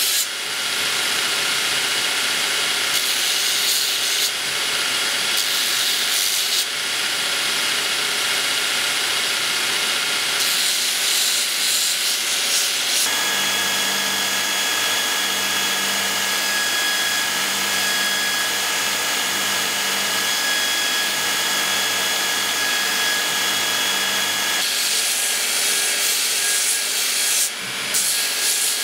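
Belt grinder grinding a small steel hilt fitting, a steady hissing rasp of steel on the abrasive belt. From about 13 to 25 seconds in the piece is off the belt and only the running machine is heard, a steady tone with a low regular pulse. Then grinding resumes.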